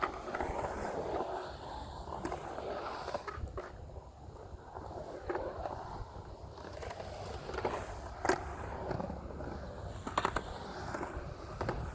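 Skateboard wheels rolling and carving on concrete transition, the rolling noise swelling and fading as the board goes up and down the walls, with a few sharp clacks of the board or trucks about three, eight and ten seconds in.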